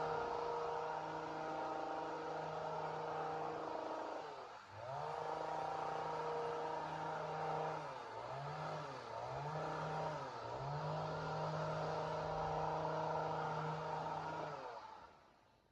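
Two-stroke chainsaw engine running at high speed, its pitch dipping sharply and recovering four times, then dying away near the end.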